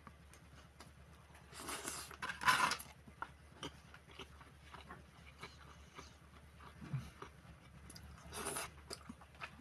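Instant noodles being eaten: a long loud slurp about two seconds in and a shorter slurp near the end, with soft chewing and small mouth clicks between them.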